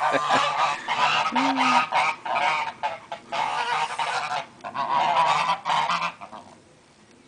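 Several domestic geese honking at once, harsh, ragged and overlapping, as they face down a dog; the calls stop about six and a half seconds in.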